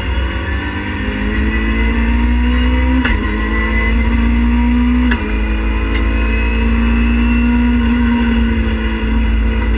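Racing car's engine heard from inside the cockpit, accelerating at full throttle. The revs climb in second gear, drop at a quick upshift to third about three seconds in, climb again and drop at the shift to fourth about five seconds in, then rise toward about 7000 rpm.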